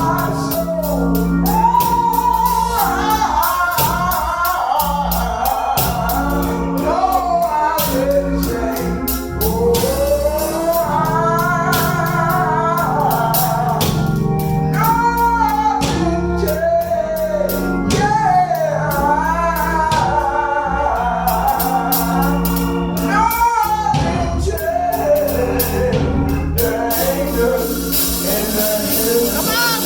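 Gospel song: singing over organ and bass with tambourine.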